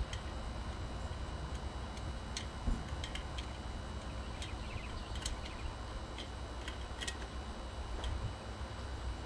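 Scattered light clicks and taps of hands and tools fastening parts, irregular and a few seconds apart, over a steady low rumble.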